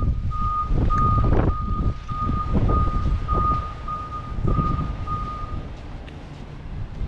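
A vehicle's reversing alarm beeping with a steady high tone, stopping a little over five seconds in, over wind buffeting the microphone and footsteps crunching in snow.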